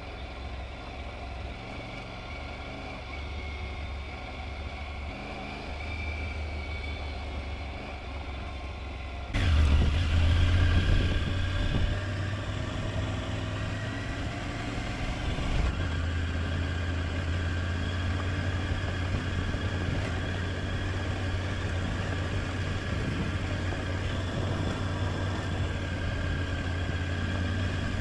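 Triumph Tiger 900 Rally Pro's three-cylinder engine running steadily as the motorcycle rides along, getting louder about nine seconds in.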